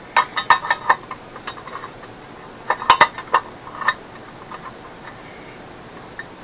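Small steel baffle plates clinking and scraping against a rectangular steel muffler body as they are fitted into its end. There is a quick run of sharp clinks in the first second and another about three seconds in.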